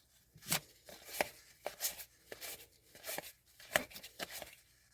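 Trading cards being flicked and slid through the hands one at a time, a short sharp swish or snap about every half second, unevenly spaced.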